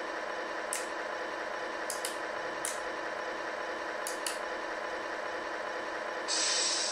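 Simulated diesel idle from the RC truck's electronic sound unit, played through its small speaker as a steady hum. A few short clicks sound over it, and a brief hiss comes near the end.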